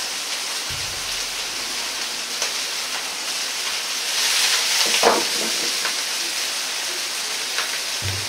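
Peeled shrimp sizzling in oil in a wok as they sear on their second side: a steady hiss that grows a little louder for a second or so about four seconds in, as the wok is moved, with a few light clicks.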